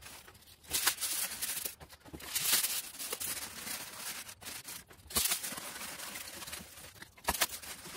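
Pressure washer jet spraying in repeated bursts of a second or two, a loud hiss that starts and stops as the trigger is squeezed and released.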